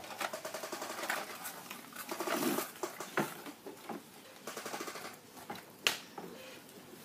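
Plastic toy vehicles being handled and pushed about, with spells of fast rattling clicks and several sharp clacks, the loudest near the end.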